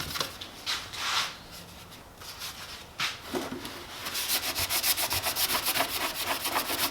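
Hand rubbing back and forth on the plastic surface of a motorcycle's rear case, cleaning off emblem adhesive and paint. A few separate strokes at first, then fast, even scrubbing at about seven strokes a second from about four seconds in.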